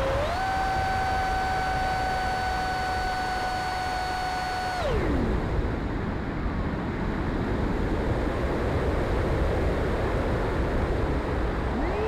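RC plane's motor and propeller whining at steady throttle, then throttled back about five seconds in so the whine slides down in pitch and stops, leaving only the rush of wind. The motor spools up again right at the end.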